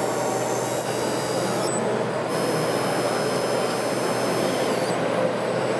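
Steady mechanical whirring and hiss from radio-controlled model machinery running, with a thin high whine that shifts pitch about two seconds in and again near the end.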